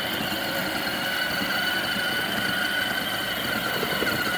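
Electric ride-on toy quad's drive motors and plastic gearboxes whining steadily as it drives, pushed by a 24 V drill battery, with the rumble of its tires rolling on pavement underneath.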